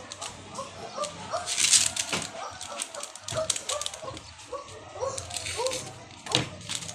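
A dog whimpering in a string of short, rising whines, with a brief loud rustle about two seconds in.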